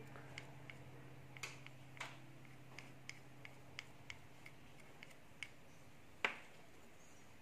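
Small plastic spoon clicking and tapping against miniature stainless steel bowls as food is scraped from one into the other: a string of faint, irregular light clicks, about two a second, with one louder knock about six seconds in.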